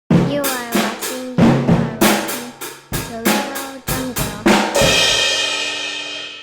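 Drum kit playing a quick fill of snare, tom and bass drum hits, ending on a cymbal crash that rings out and fades.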